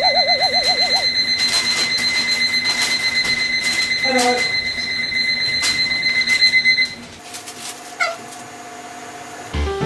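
Alarm clock ringing with a steady, pulsing high tone, a warbling tone over it at the start; it cuts off suddenly about seven seconds in, leaving a quieter steady tone.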